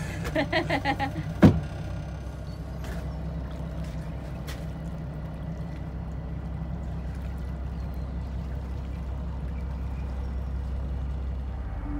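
Low, steady drone of a Nordhavn trawler's diesel engine as the boat motors away from the dock. A brief burst of voice and a single sharp thump come in the first two seconds.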